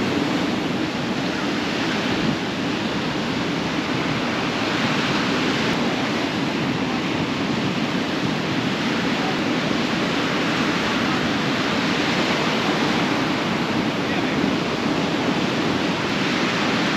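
Surf breaking and washing up a sandy beach: a steady rushing noise with some wind.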